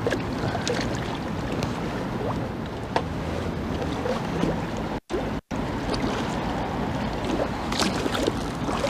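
Wind buffeting the microphone over choppy river water, a steady rumbling rush with a few small clicks and knocks. The sound drops out twice for a moment about five seconds in.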